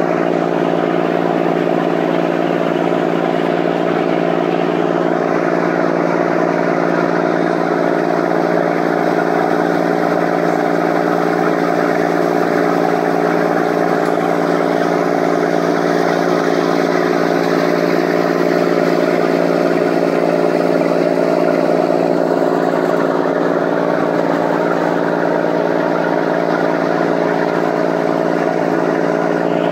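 Ferryboat's engine running with a steady, unchanging drone while the boat is under way, with an even rush of noise over it.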